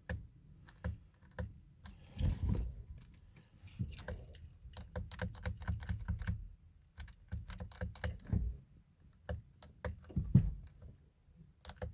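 Irregular light clicks and taps inside a car cabin, with a few dull thumps, the loudest about ten seconds in. No starter cranking and no engine running: the car is failing to start.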